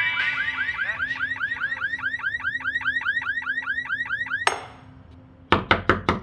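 Electronic alarm warbling in rapid repeated chirps, about five a second, cutting off abruptly about four and a half seconds in. Near the end comes a quick run of loud knocks on a door.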